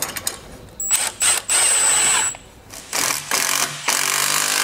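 Handheld power tool running in several bursts: one of about a second and a half with a high motor whine, then two shorter runs near the end.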